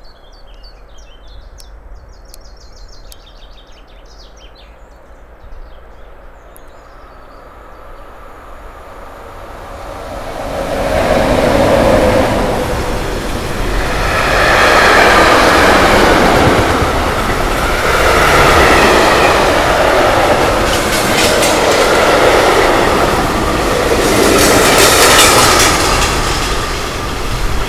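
Mixed freight train hauled by two DB Class 143 electric locomotives approaching and passing close by. A rumble builds from about ten seconds in, then the tank wagons roll past with their wheels clattering, the level rising and falling in slow waves.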